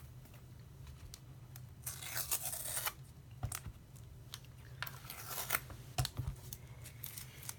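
Protective tape being peeled and foam packaging pulled off a new replacement laptop screen: irregular bursts of tearing and rustling with a few light knocks, over a low steady hum.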